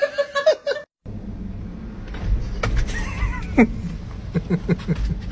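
An animal's calls over a steady low rumble: one long cry that falls in pitch, then several short calls in quick succession.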